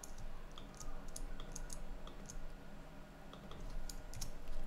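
Irregular clicking of computer controls (mouse buttons or keys): about a dozen short, sharp clicks at uneven gaps.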